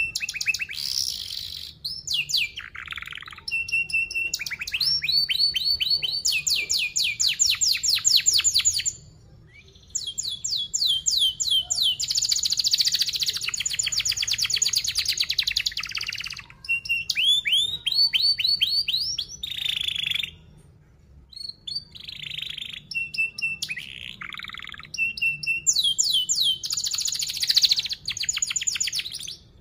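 Young domestic canary singing long phrases of fast, tightly packed trills and chirps, with short pauses between phrases.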